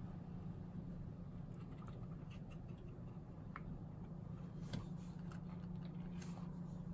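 Faint scattered ticks and light scrubbing of a water brush working paint in the wells of a plastic watercolour palette, with a sharper tick about three and a half seconds in and another just before five seconds, over a steady low hum.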